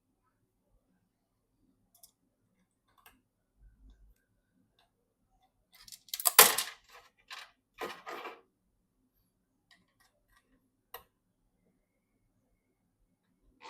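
Handling noises while a PC is being assembled: scattered light clicks, with a short cluster of louder rustling and scraping about six to eight seconds in.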